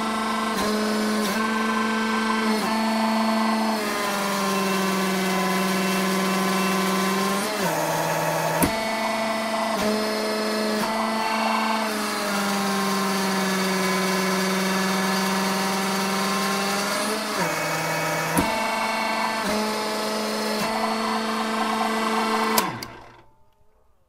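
Electric motor and pump of a hydraulic press running with a steady pitched whine, its pitch sagging slightly during two long pushes as the ram bears down on a stack of cookies. It cuts off near the end.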